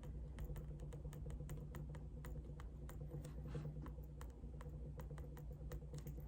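A quick, irregular run of small clicks and taps, about four or five a second, over a low steady hum.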